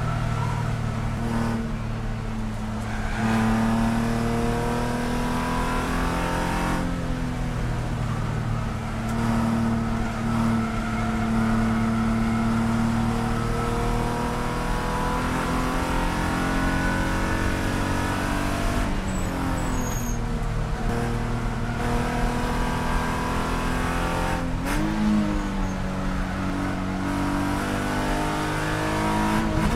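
BMW E46 race car's straight-six engine heard from inside the cabin at high revs on track, its pitch climbing and falling with the throttle through the corners. Near the end there is a short rev blip, as on a downshift.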